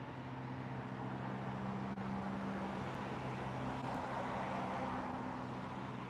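A motor vehicle passing, its engine hum and tyre rush swelling to a peak a few seconds in and then fading.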